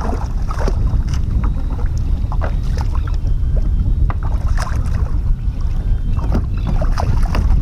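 Wind rumbling on the microphone, with small splashes and knocks at the kayak's side as a hooked gafftopsail catfish thrashes at the surface.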